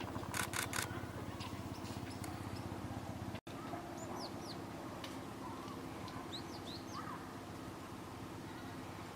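Small birds chirping: short, high calls that slide in pitch, a few around the middle and a cluster a little later, over a steady low hum.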